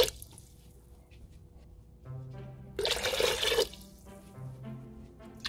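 Water poured into an empty stainless steel pot, a splashing rush about three seconds in, over soft background music.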